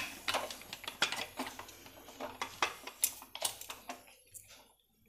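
Aluminium pressure cooker lid being closed and its handle clamped shut: a run of light, irregular metal clicks and knocks that thin out towards the end.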